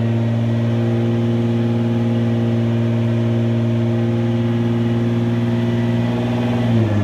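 HKS GT1000+ Nissan GT-R's tuned twin-turbo VR38DETT V6 running steadily while being warmed up. Near the end the engine note dips briefly, then picks up again.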